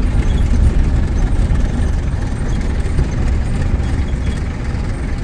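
Engine and road noise of a moving vehicle heard from inside the cab: a steady low drone with no change in pace.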